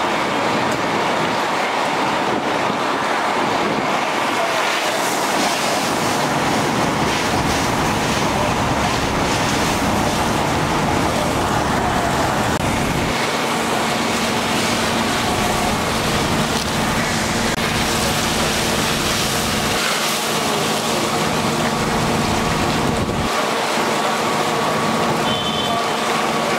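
Steady, loud rushing noise at a structure fire: water from a fire hose line mixed with the running of fire apparatus. A low steady hum joins about halfway through.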